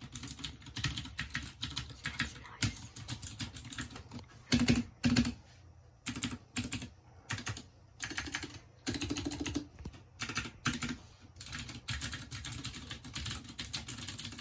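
Typing on a Ducky One 2 Mini mechanical keyboard: fast runs of key clacks with short pauses, and a few louder strokes about five seconds in.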